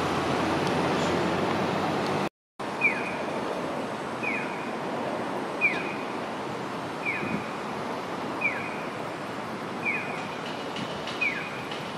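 Streetcar running along the tracks toward the stop, then after a cut a short, falling electronic chirp that repeats evenly about every second and a half over street noise.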